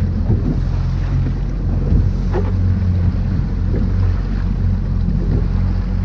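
Fishing boat's engine running steadily at trolling speed, a deep even hum, with wind buffeting the microphone and water rushing along the hull.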